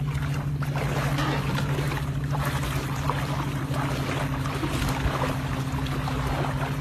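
Wind on the microphone and shallow sea water moving around wading legs, over a steady low hum.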